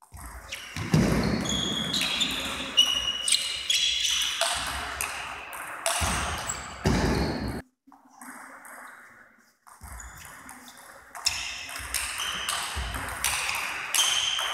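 Table tennis rallies: the ball clicking off the bats and the table in quick succession. The sound cuts out abruptly for a moment about halfway through, then play resumes.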